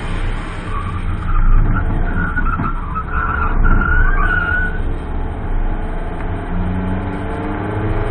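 Rover 620 Si's Honda F20Z1 2.0-litre SOHC 16-valve four-cylinder engine running under load while the tyres squeal through a tight bend, the squeal wavering from about a second in until about five seconds. Near the end the engine note rises as the car accelerates out of the corner.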